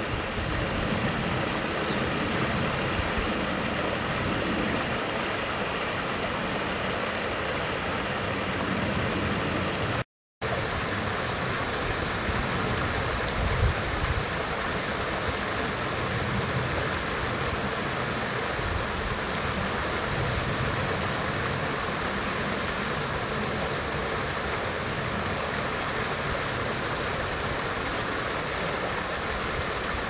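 Steady outdoor noise of running water with a faint traffic hum, cutting out for a moment about a third of the way in. Two short high-pitched bird calls come about two-thirds of the way in and near the end.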